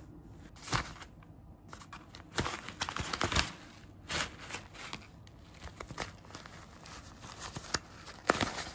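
A thin white sheet rustling and crinkling in irregular spells, louder a few seconds in and with a sharp crinkle near the end.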